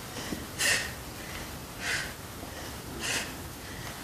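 A woman's sharp, audible exhales, three of them about a second apart, each forced out as she twists and switches legs in a core crunch exercise.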